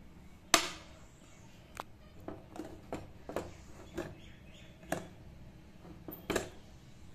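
Sharp metal click as the pressure cooker's whistle weight is lifted off its vent pipe, then a scattering of fainter clicks and ticks from the steel cooker. A second loud click comes near the end.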